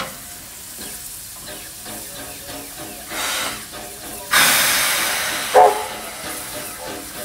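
USATC S160 2-8-0 steam locomotive hissing steam from around its cylinders, with a louder burst of steam about four seconds in that fades away and a short sharp blast just after.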